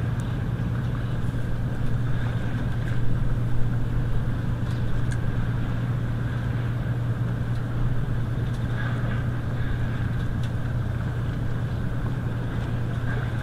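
Steady low engine hum.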